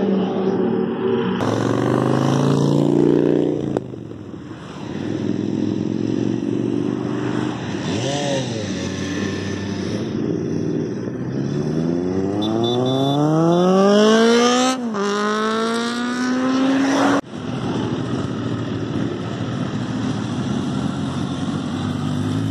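Sport motorcycle engines at hard throttle. One note falls in pitch as a bike goes by. Later an engine climbs steeply in pitch, drops briefly at an upshift and climbs again, and near the end a steadier engine note runs on.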